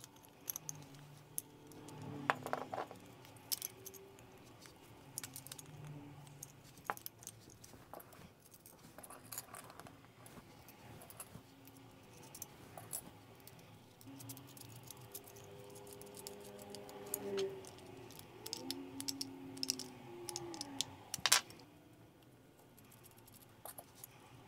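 Small clicks, taps and rattles of a guitar effects pedal being reassembled by hand: the circuit board, with its jacks and potentiometers, is pushed back into the small die-cast aluminium 1590B enclosure, with a louder click near the end.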